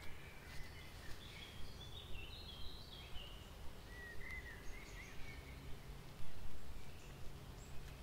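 Faint bird chirps and short song phrases, high and brief, over a low steady background rumble, with a swell in the rumble about six seconds in.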